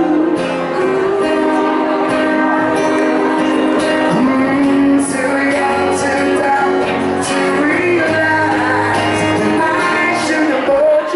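A man singing a slow pop ballad live into a handheld microphone over an instrumental backing.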